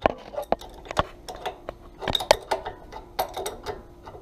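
Metal wrench turning a brass thermal relief valve out of a pressure washer pump, giving a run of irregular metallic clicks and clinks, several a second.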